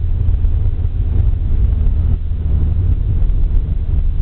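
Nissan Sentra's engine and road noise heard from inside the cabin, a steady low rumble as the car drives in second gear.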